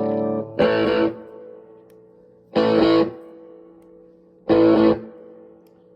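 Electric guitar with a P90 pickup played through a DIY fuzz pedal into a 1980s Fender Super Champ amp, the fuzz set about halfway. A held chord is cut off just after the start, then three short distorted chord stabs come about two seconds apart, each left to ring and fade.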